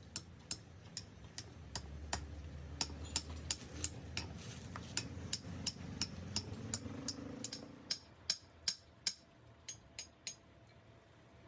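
Quick, regular sharp metallic taps, about two to three a second, in the manner of a hammer tapping on metal, over a low rumble that swells between about two and eight seconds in.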